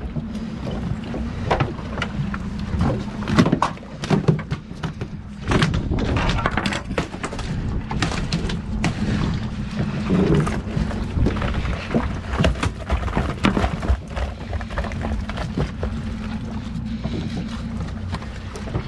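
Fishing boat's engine running steadily, with many scattered knocks and clatters of gear and footsteps on the deck.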